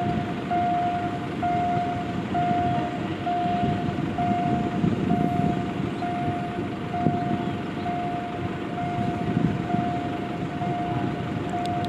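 Electronic warning beeper sounding one long, mid-pitched beep about every second, over a steady low rumble.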